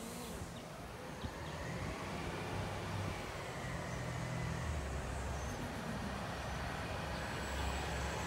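Engine of a rear-loader garbage truck running as it drives up the street, its note shifting a few times and growing gradually louder as it approaches.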